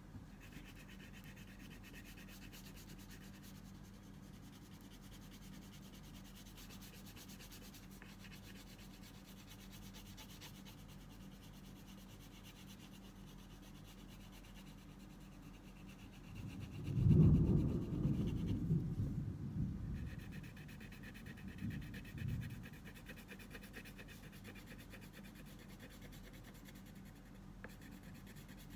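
Red crayon scratching steadily across drawing paper as an area is coloured in. From about sixteen seconds in, for roughly six seconds, a much louder low, uneven noise comes in several swells over it.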